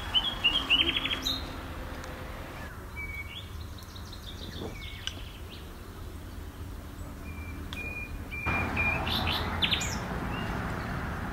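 Small birds chirping and singing in short whistled notes and trills, over a steady low background rumble.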